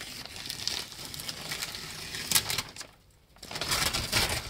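Plastic protective sheeting being pulled off the van's window frames and crumpled: a crackling rustle, broken by a brief pause about three seconds in.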